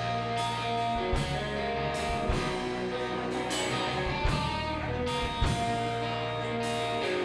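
Rock band playing live in an instrumental passage: guitars and bass holding notes over a drum kit beat.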